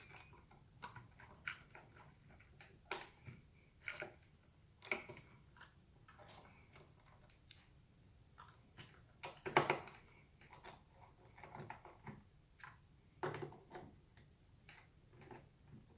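Irregular clicks and knocks of hands and tools working on a Xiaomi M365 electric scooter as its battery is fitted back into place, with a louder cluster of knocks about nine and a half seconds in.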